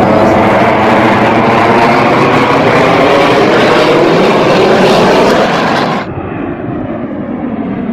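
Display aircraft flying overhead with a loud, steady engine roar. About six seconds in it cuts suddenly to a quieter, duller engine sound from a formation of jets.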